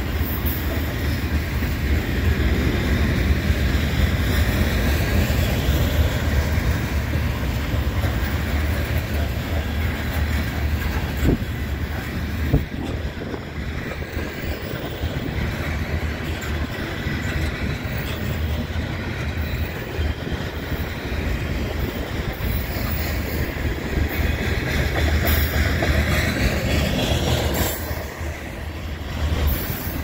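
Covered hopper cars of a CN freight train rolling past, their steel wheels making a steady rumble and clicking over the rail joints, with a couple of sharper knocks around the middle.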